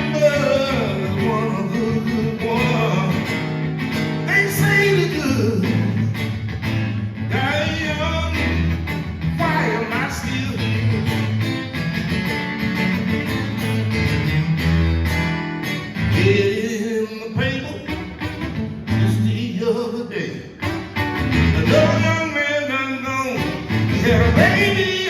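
Live acoustic blues: a man's voice singing gliding, wordless lines over guitar, with a steady bass pattern underneath.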